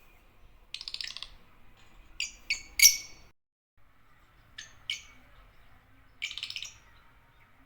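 Agapornis lovebirds chirping: a short rattling chatter, then three sharp high calls in quick succession, the last the loudest, two more short calls, and another rattling chatter near the end.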